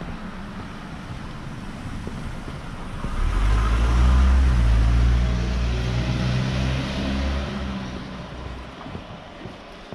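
A minivan drives slowly past at close range. Its low engine hum and tyre noise swell about three seconds in, peak a second later, and fade away over the next few seconds.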